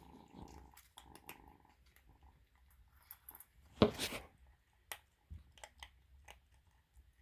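A kitten eating: faint, irregular small clicks and crunches, with one louder knock about four seconds in.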